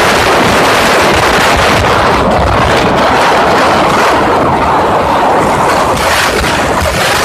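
Loud, steady wind rushing and buffeting over the microphone of a moving motorcycle, with the bike's road noise mixed in.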